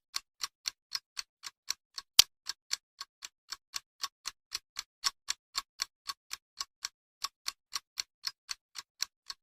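Clock ticking sound effect, about four even ticks a second over dead silence, marking the wait while the microwave runs; one sharper click about two seconds in.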